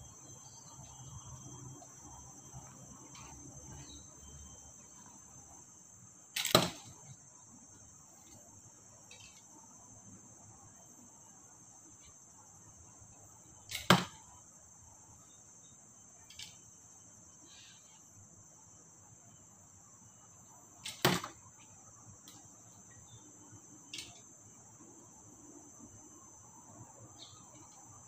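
Arrows striking an archery target three times, about seven seconds apart, each a sharp thud with a fainter sound just before it. A steady high insect buzz runs underneath.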